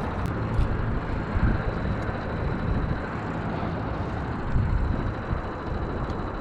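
Steady low rumble of a fishing boat's motor under way, with wind buffeting the microphone in a few gusts.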